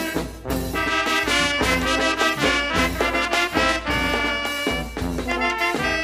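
Colombian town wind band (banda de pueblo) playing a lively tune: trumpets and saxophone on the melody over tuba and baritone horn bass notes in a steady beat, with snare drum, bass drum and cymbals.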